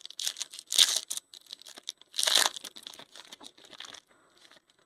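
Foil trading-card pack wrapper being torn open and crinkled by hand, with two loud rips, one about a second in and one just past two seconds, then lighter crinkling that dies away near the end.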